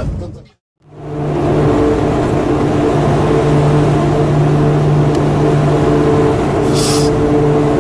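Twin T56 turboprop engines of an E-2 Hawkeye running on the carrier's catapult: a steady propeller drone with a low hum and higher steady tones over a rushing noise, starting about a second in after a brief drop to silence. A short hiss sounds near the end.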